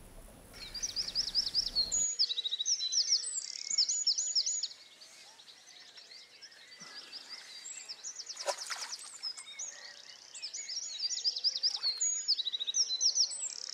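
Songbirds singing: rapid, repeated high chirping trills, several runs of them, with one short sharp sound about eight and a half seconds in.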